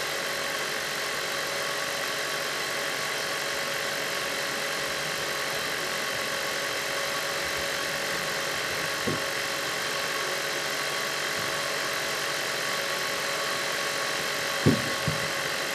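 Steady hiss and whine of a BGA rework station's fans and hot-air blower running, with several steady tones in the hiss. A short click sounds about nine seconds in, and two more about a second before the end.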